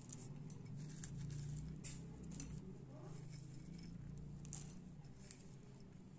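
Faint light taps and patter of chopped dry-fruit pieces dropped by hand onto a steel plate of powdered mixture, over a low steady hum.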